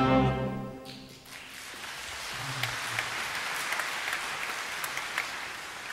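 A mezzo-soprano's final held note with the orchestra cuts off about a second in, and audience applause follows, building up and then clapping steadily.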